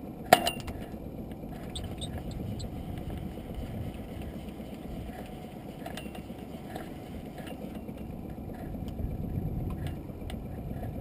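Steady low rumble of wind and sea aboard a small open boat drifting at sea, with one sharp click about a third of a second in and a few faint ticks around two seconds in.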